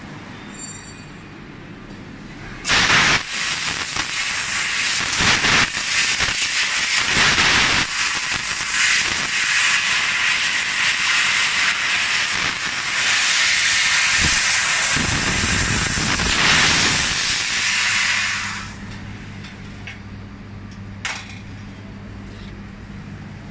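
AKJ1390F fiber laser cutting machine cutting 2 mm aluminium sheet: the cutting head hisses loudly with its high-pressure assist gas jet. The hiss starts suddenly about three seconds in and runs unevenly with short dips. It stops a few seconds before the end, leaving a low steady machine hum.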